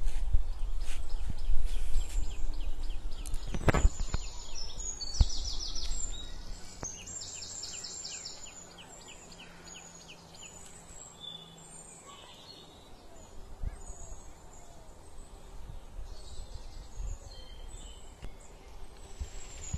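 Small birds calling, with two rapid trills of repeated high notes about five to seven seconds in and scattered high chirps. Under them is a low rumble in the first few seconds, and there is one sharp knock about four seconds in.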